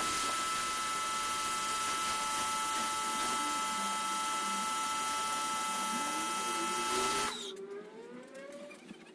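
A steady machine hiss with a high, even whine on several fixed pitches, which cuts off suddenly about seven seconds in.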